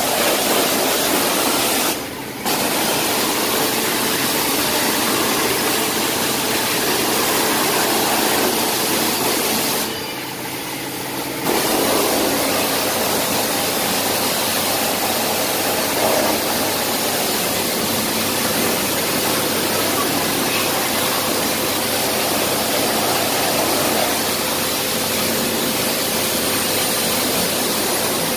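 Hot-water pressure washer spraying steadily into a car's engine bay, the jet striking the engine parts. The spray cuts off briefly about two seconds in and again for about a second and a half near ten seconds in.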